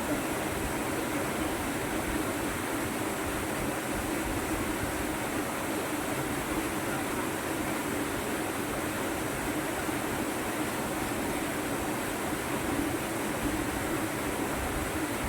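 Rushing water from a fast river or waterfall: a steady, unbroken roar.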